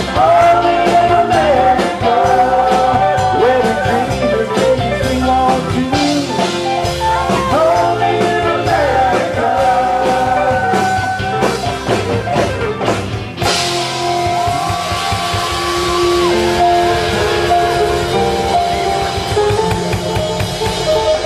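Live rock band playing an instrumental stretch of a song, with electric guitars, bass guitar, drum kit and congas. The lead line bends in pitch through the first half, and about 13 seconds in the sound grows brighter with crashing cymbals.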